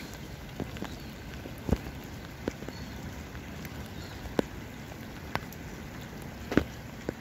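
Outdoor ambience: a steady low rumble with scattered sharp ticks, roughly one a second.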